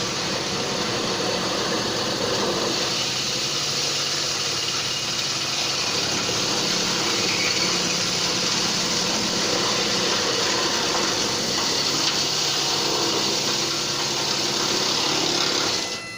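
CNC router spindle running a step drill bit through 0.5 mm galvanised steel sheet, a loud steady machining noise as it works through a series of holes. It cuts off sharply near the end as the drilling run finishes.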